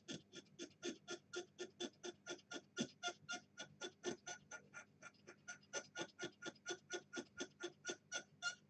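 Small hobby-knife blade scraping a circuit board's solder mask and fibreglass layers in quick, short strokes, a faint even ticking of about six scrapes a second.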